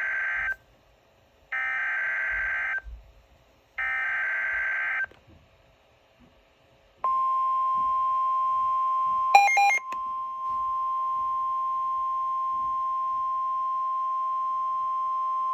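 Emergency Alert System alert: three harsh digital data bursts of about a second each (the SAME header coding the severe thunderstorm warning), then after a short pause a long, loud, steady alert tone lasting about nine seconds, broken by a brief garbled burst about two seconds into it.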